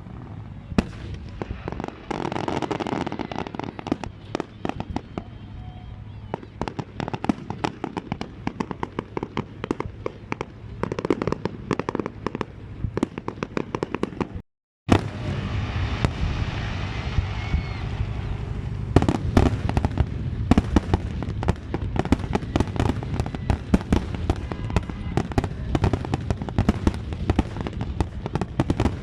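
Fireworks display: a dense, rapid run of bangs and crackling bursts, thickening into a heavier barrage in the second half, with a short break about halfway.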